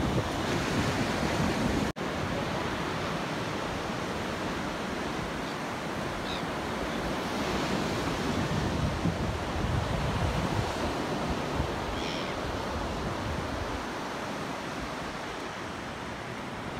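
Surf breaking and washing up a sandy beach: a steady rush of waves. The sound drops out for an instant about two seconds in.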